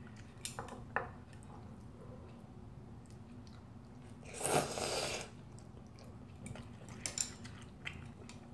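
A person slurps a mouthful of instant ramen noodles once, a long wet rush about halfway through. Around it are a few light clicks and chewing sounds.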